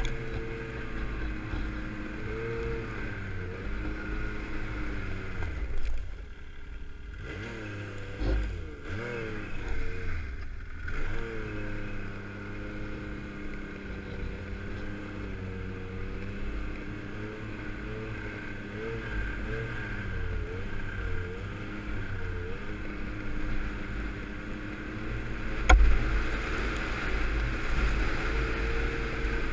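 Yamaha snowmobile engine running along a trail, its pitch rising and falling with the throttle and easing off briefly twice, about six and ten seconds in. A low rumble runs underneath, and one sharp knock comes near the end.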